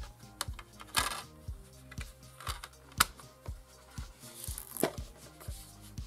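Blu-ray disc set back into a mediabook's clear plastic tray, snapping onto the centre hub with one sharp click about three seconds in, among a couple of brief scrapes of handling. Background music with a steady beat runs underneath.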